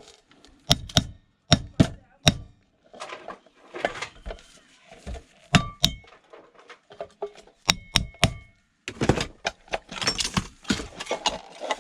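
Metal parts of a taxi radio unit knocked and wrenched by hand to free a piece held by a stuck screw: a string of sharp knocks and clinks, some ringing briefly, with a quicker rattling stretch near the end.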